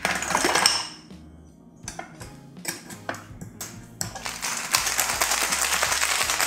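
Ice cubes clattering into a glass cocktail shaker, a few clinks as the metal tin is pressed on top, then from about four seconds in a fast, steady rattle of ice shaken hard inside the sealed shaker.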